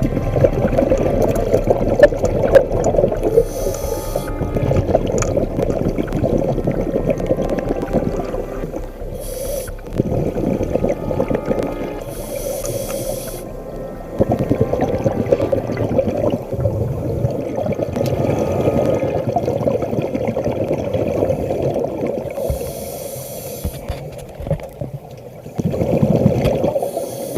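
Scuba diver breathing underwater through a regulator: short hisses of inhalation every few seconds over the gurgle of exhaled bubbles.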